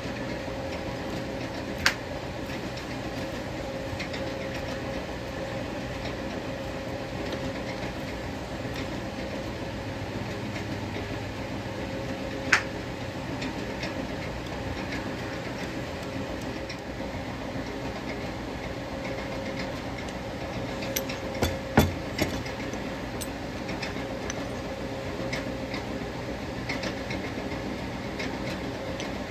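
Small belt-driven lathe running steadily with a constant hum. A few sharp knocks break through: one about two seconds in, one around twelve seconds, and a pair near twenty-two seconds.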